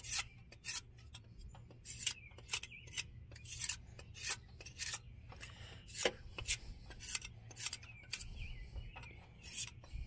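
Hand scraper scraping old gasket residue off a metal exhaust mating surface in short, uneven strokes, about two a second.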